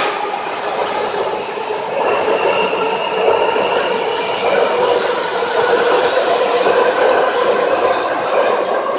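Electric commuter train running through a station: steady rail and wheel noise with faint high squealing tones over it.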